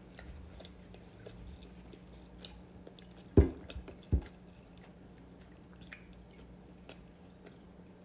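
Small mouth and hand sounds at a dinner table, with scattered soft clicks, and two dull thumps a little under a second apart near the middle as a glass of iced juice is grabbed and moved.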